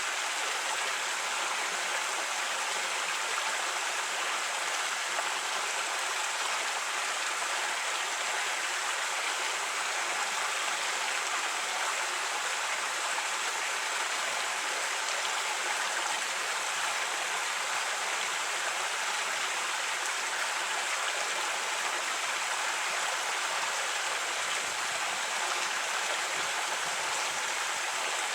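A creek flowing over rocks: a steady rush of running water.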